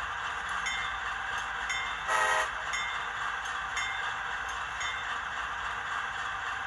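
Diesel locomotive idle sound from an HO-scale GE AC4400CW model's ESU LokSound 5 decoder, playing through the model's small onboard speaker as a steady hum with a light tick about once a second. A short toot comes about two seconds in.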